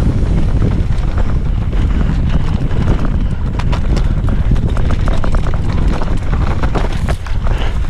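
Mountain bike running fast down a rocky dirt trail: wind rushing on the microphone, with the tyres crunching over loose stones and the bike clattering over bumps. The clatter is thickest in the second half.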